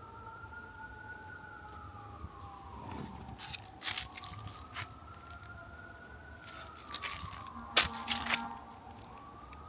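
A distant siren wailing, its pitch slowly rising and falling twice. A few sharp crunches and clicks cut in around the middle and near the end, the loudest about eight seconds in.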